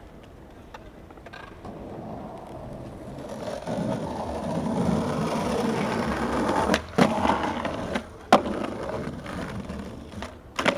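Skateboard wheels rolling over tiled pavement, growing louder as the board comes closer, then a few sharp clacks of the board, the loudest about eight seconds in and two more near the end.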